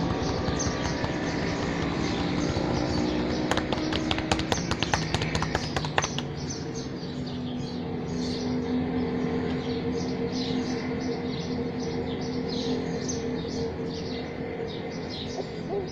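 Birds chirping over and over in short calls, with a steady low hum underneath. A quick run of sharp clicks comes about four to six seconds in.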